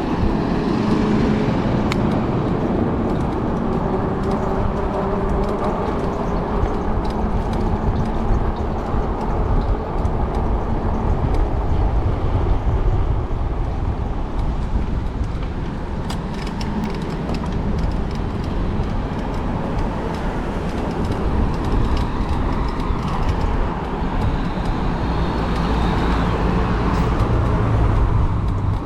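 Steady wind and road noise on a microphone carried along on a moving e-bike, with motor traffic around it.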